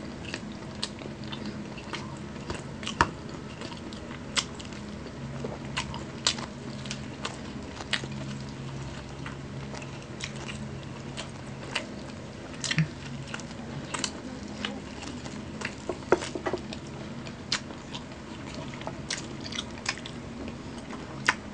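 Close-miked chewing and biting as two people eat chicken burgers, with many irregular wet mouth clicks and smacks. A faint steady low hum runs underneath.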